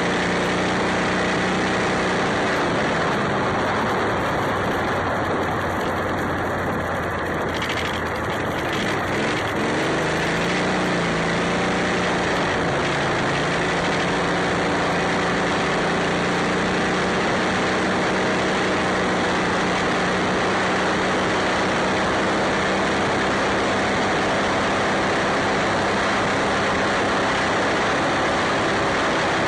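Modified Club Car golf cart's 23 hp Briggs & Stratton engine running while the cart is driven, over a steady rush of wind and road noise. The engine note falls over the first few seconds, climbs again about nine to eleven seconds in, then holds steady at cruising speed.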